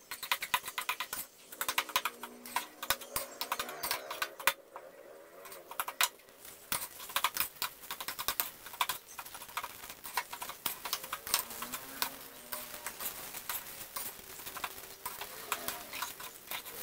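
Metal spatula scraping and tapping against a stainless steel wok as fried rice is stirred and turned, in rapid, irregular clicks.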